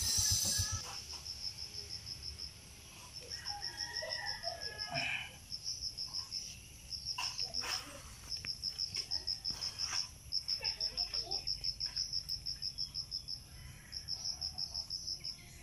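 An insect chirping in a steady high-pitched pulsed trill, about six pulses a second in runs of a second or two. A few sharp knocks and scrapes of a knife blade cutting into roots and soil.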